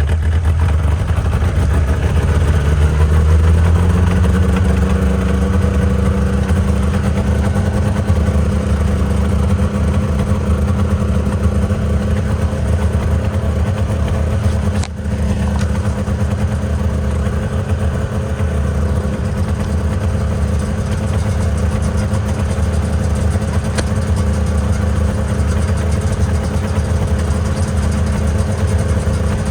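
Snowmobile engine running under way, its pitch climbing over the first few seconds and then holding steady.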